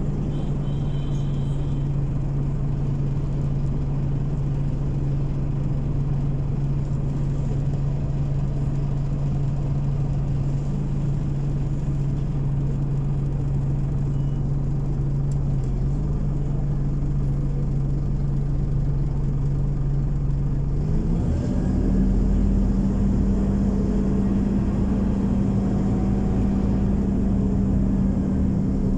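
Scania OmniCity city bus engine running at a steady idle hum, heard from inside the bus. About 21 seconds in it revs up as the bus pulls away, holding a higher pitch, then drops back near the end.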